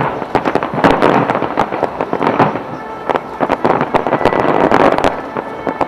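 A fireworks display bursting: a rapid run of sharp bangs and crackles, with music playing underneath.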